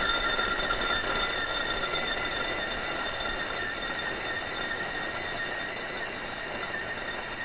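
Arçelik electric food chopper running steadily with a high motor whine as it grinds walnuts, almonds and dates into a sticky paste, slowly growing quieter.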